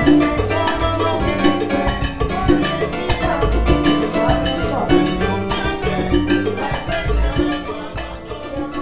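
Salsa music with Latin percussion and bass, played by a small band.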